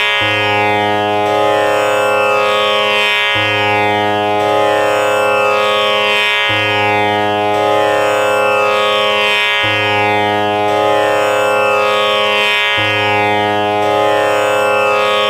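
Background instrumental music: a sustained drone of many steady tones, struck afresh about every three seconds.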